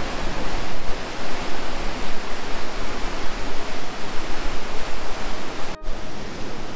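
Loud, steady rushing of fast-flowing water, a river rapid or waterfall, broken by a momentary cut near the end.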